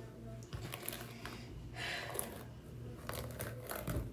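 A few short rustles of a wig's hair being handled, over a low steady hum.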